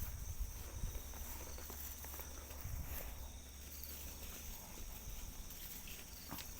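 Faint outdoor background: a steady high insect drone and a low rumble, with a few soft ticks or rustles.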